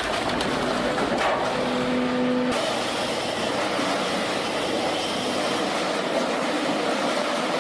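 Firewood processor running: a steady mechanical din with a hum. The sound changes abruptly about two and a half seconds in.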